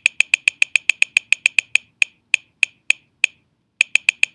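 Computer mouse button clicked rapidly over and over, about eight clicks a second at first, slowing to about three a second, pausing briefly near three seconds in, then clicking quickly again near the end.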